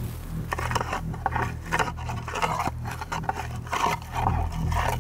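Moose scapula call raked through spruce branches, giving a run of irregular scrapes and cracks of brush. It mimics a bull moose thrashing brush with his antlers, a challenge meant to draw a rutting bull out.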